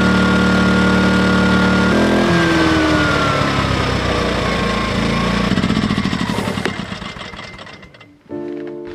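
Corded electric heat gun running with a steady fan-motor whine, then switched off about two seconds in: its pitch falls as the motor winds down and the sound fades out over several seconds. Guitar music starts near the end.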